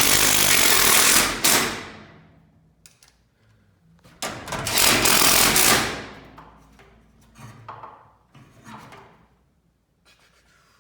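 Impact driver hammering self-tapping screws into the steel garage door panel and strut, in two bursts of about two seconds each, the second about four seconds in.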